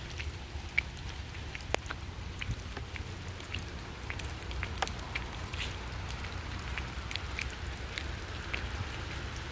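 Light rain pattering: scattered, irregular drops tick on wet pavement and leaves over a steady low rumble.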